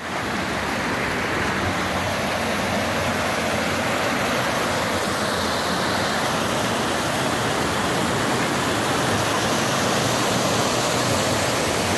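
Floodwater rushing in a loud, steady torrent that starts abruptly.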